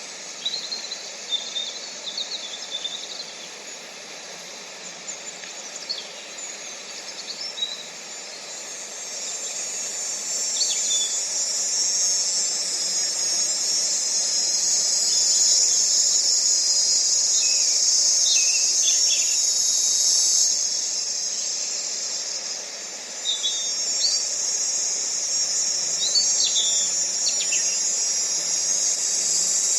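A high-pitched insect chorus that swells in about a third of the way in, stays loud through the middle, and dips briefly about three quarters through before rising again. Birds chirp in short, scattered calls over it throughout.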